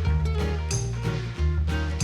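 Background music: an upbeat guitar-led track with a walking bass line and a steady beat.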